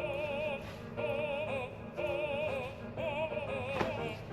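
Background music: a melody with a strong vibrato, moving in short phrases about once a second.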